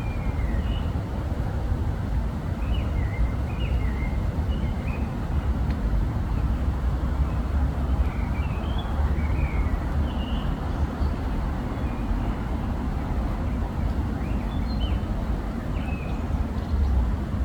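Steady low outdoor rumble with scattered short, high chirps of small birds.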